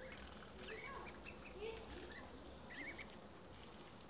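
Ducklings peeping: a scattered series of short, high calls, some rising and falling, with one wavering call near the middle.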